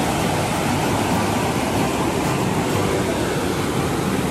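Khairi river rapids rushing over rocks: a steady, even rush of water.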